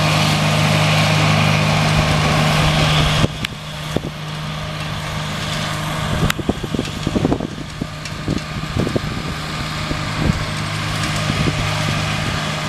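Engine of a Toro front-deck ride-on mower running steadily while it mows, a constant hum. The sound drops suddenly a little over three seconds in, then goes on somewhat quieter with scattered short knocks.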